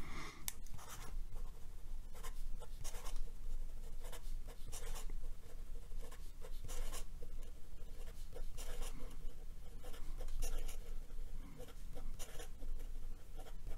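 Sailor Profit fountain pen's steel fude nib writing fast cursive on notebook paper: an irregular run of short strokes of nib on paper, one after another.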